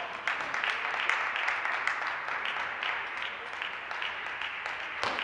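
Spectators applauding after a rally ends, many hand claps over a steady wash of clapping. A single sharp knock comes near the end.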